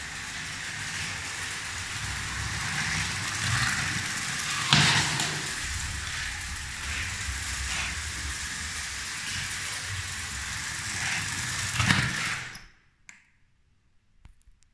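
Lego 12v train (726 Western Express) running on plastic track: a steady rattling run with repeated wheel clicks and two louder clacks, about five seconds in and near twelve seconds. The running noise then stops suddenly, leaving near silence with a few faint clicks.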